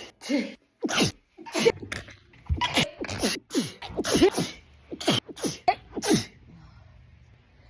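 A woman sneezing again and again in a rapid fit: about a dozen sharp sneezes, roughly two a second, which stop about six seconds in.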